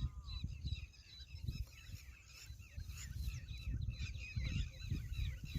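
Many birds chirping together in a dense, overlapping chatter of short high calls, over an uneven low rumble.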